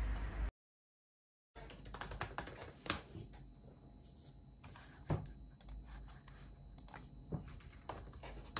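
Typing on a laptop keyboard: irregular light key clicks starting about a second and a half in, with a few louder taps among them.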